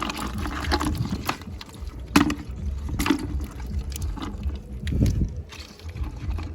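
Water splashing and sloshing as the catch is handled, in irregular splashes, the sharpest about two and three seconds in and again near five seconds.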